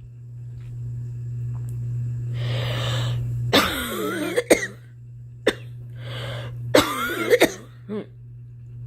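A girl coughing in two short fits, each after a sharp breath in: one about three and a half seconds in, the other near the end.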